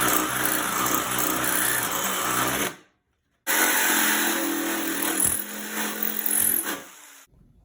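Power drill boring a hole through the metal ammo can, in two steady runs with a short break between them.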